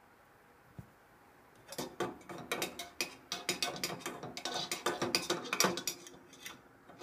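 A thin stirrer rattling and clinking against the inside of an aluminium soda can of water: rapid, irregular metallic clinks and scrapes that start about two seconds in and stop shortly before the end.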